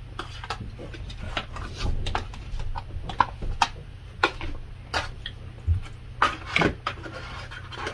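Close-up eating sounds: a metal spoon and fork clicking and scraping in a plastic takeout tray, with wet chewing and mouth clicks, irregular and most frequent near the end.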